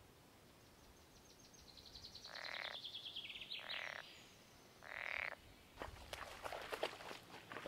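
Frogs calling at a bog pond: a fast pulsed trill and three short rasping calls about a second apart. A run of crackling and rustling follows near the end.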